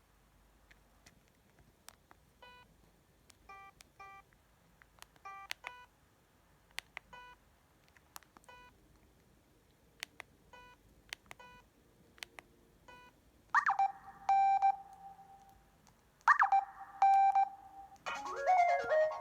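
ZTE S2X mobile phone's electronic beep sounds through its small loudspeaker: a scattered string of short blips, then twice a tone that sweeps up and settles into a steady beep. A melodic ringtone begins near the end.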